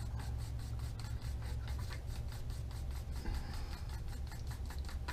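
Orange airbrush paint being mixed in the airbrush's colour cup: quick, irregular rubbing and scraping strokes, several a second, over a steady low hum.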